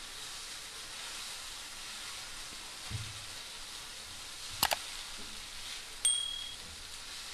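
Dosa batter sizzling softly on a hot oiled nonstick pan as it is spread in circles with the back of a steel ladle. About two thirds of the way through comes a sharp mouse-click sound effect, then just over a second later a click and a short high bell ding, the on-screen subscribe-button and notification-bell effects.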